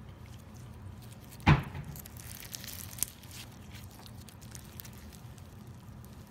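Hands stretching and squeezing glittery pearl slime, making sticky crackles and squelches. There is one sharp pop about a second and a half in, followed by a burst of crackling.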